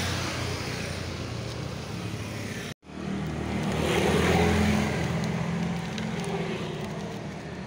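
Road traffic: a motor vehicle's engine hum, getting louder after about three seconds, at its loudest just past the middle, then fading as it passes. The sound cuts out briefly about a third of the way in.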